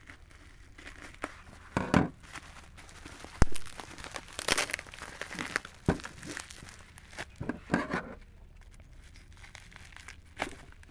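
Black bubble-wrap plastic packaging crinkling and tearing in irregular bursts as it is cut with scissors and pulled open by hand, with two sharp clicks about three and a half and six seconds in.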